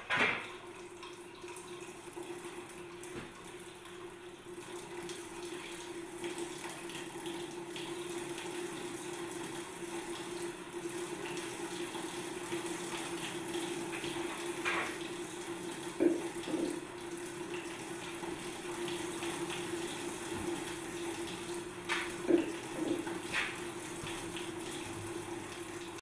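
Water running and trickling through a wooden Escher's Waterfall model and onto its small waterwheel, over a steady low hum, with a few sharp knocks.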